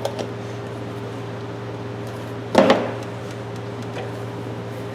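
Steady low hum of background machinery, with a single short clank about two and a half seconds in as a steel adjustable wrench is handled.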